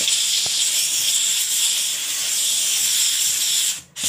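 Kärcher SC4 steam cleaner hissing steadily as its nozzle jets steam onto the floor, breaking off for a moment near the end.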